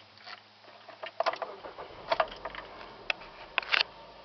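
Sharp clicks and knocks of a hand working the car's dashboard controls, about four small clusters of them, with a faint key jangle. A low steady hum cuts off just over a second in.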